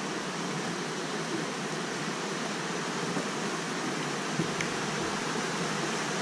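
Muddy flash-flood water rushing across a road crossing after a monsoon thunderstorm, a steady rushing noise that grows a little louder toward the end.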